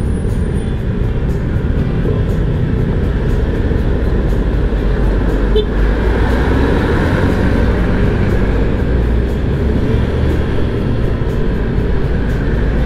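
A motorcycle being ridden in city traffic, heard from the rider's own microphone: steady wind rush and engine and road noise.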